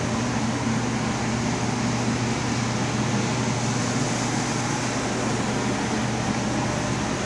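Paint booth ventilation fans running steadily: a constant rushing whir with a low hum underneath.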